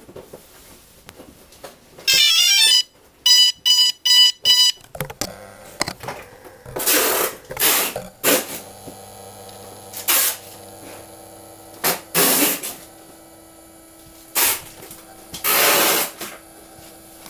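DJI Phantom 2 quadcopter powering up: a short warbling electronic start-up tune, then a quick series of five beeps. After that comes a steady low hum broken by several loud rushing bursts of about half a second each.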